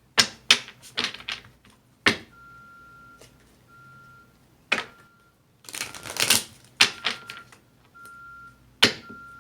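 A deck of tarot cards being shuffled: sharp card snaps and taps, with two longer riffling rustles, one about midway and one near the end. A faint steady high tone comes and goes in short beeps underneath.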